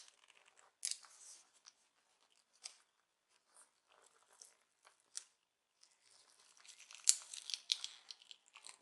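Adhesive sticker being peeled off a laptop's display cable connector: a few scattered scratchy clicks, then a denser crackling, tearing sound over the last two seconds or so.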